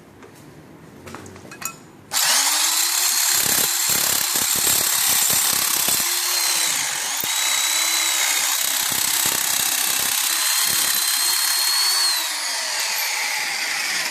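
Electric drill fitted with a nibbler attachment cutting sheet metal: it starts abruptly about two seconds in, runs loud and steady with a high whine, then winds down near the end as the whine falls in pitch.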